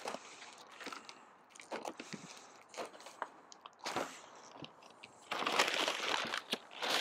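A knife slicing through brown paper wrapping in short crackling strokes, then the paper crumpling and tearing, louder, as it is pulled away a little over five seconds in.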